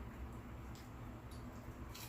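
Quiet room tone: a faint steady low hum with about three soft clicks.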